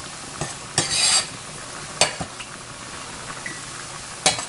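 Sliced onions shallow-frying in oil in a stainless steel saucepan, sizzling steadily, while a metal spoon stirs them. The spoon scrapes the pan about a second in and clinks against it around two seconds and near the end. The onions are almost ready, close to golden.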